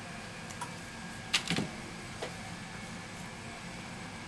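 A few light clicks and taps from small parts and tools handled at the work bench: a quick cluster about a second and a half in and a single tap shortly after, over a steady low hum.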